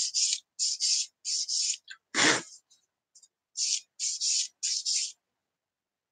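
Sanding stick rubbing back and forth on a small plastic model-kit sprocket wheel part, in short quick rasping strokes, mostly in pairs. About two seconds in the strokes pause and a single brief, louder sound comes. The strokes then resume and stop about a second before the end.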